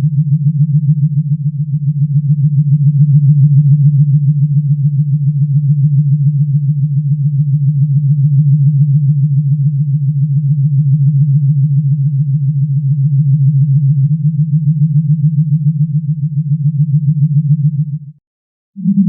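Low, steady synthesized science-fiction hum with a fast flutter, a Star Trek ambient drone effect, which cuts off suddenly near the end.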